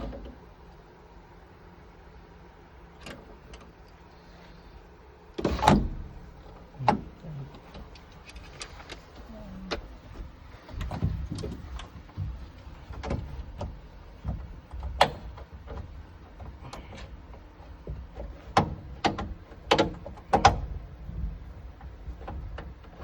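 Irregular clicks, knocks and rattles from hands and tools working on a car door's panel and inner parts during a power-window repair, with a few louder knocks about six seconds in and again near the end.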